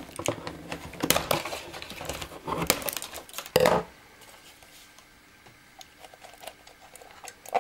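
Cardboard box packaging and a plastic remote control being handled: rustling, scraping and rapid small clicks as the remote is worked free of its cardboard insert, ending in a loud scrape a little over three and a half seconds in. After that only a few light clicks as the remote is held.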